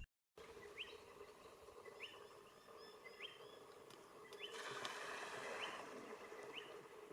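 A small bird calling faintly outdoors, a string of short rising chirps repeated about once every half second to a second, over a soft background hiss that swells for a second or so midway.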